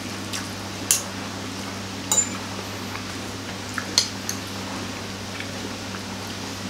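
Metal fork and spoon clinking against a plate as noodles are tossed and lifted: several sharp clinks, the loudest about a second in and about four seconds in. A steady low hum runs underneath.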